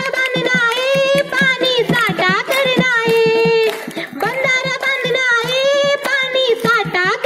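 Music: a song with a high voice singing long held, gliding notes over a quick, steady drum beat.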